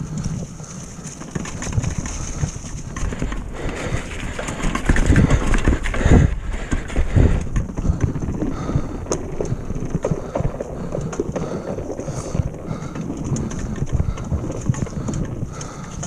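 Retro downhill mountain bike rolling fast down a rocky, leaf-covered trail: tyres crunching and the bike rattling and clattering over bumps, loudest about five to seven seconds in, then a run of knocks as it crosses a wooden boardwalk. Wind rushes over the microphone.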